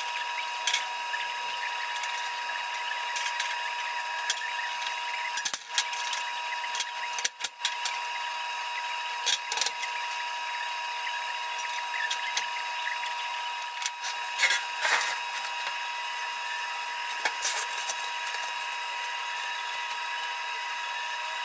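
A 16-gauge cold-rolled steel sheet is knocked and shifted into an angle-iron frame, giving a scattering of sharp metal knocks over a steady high-pitched machine whine.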